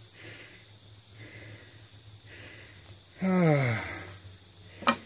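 Steady high-pitched drone of insects, with a man's drawn-out groan falling in pitch about three seconds in and a single sharp click near the end.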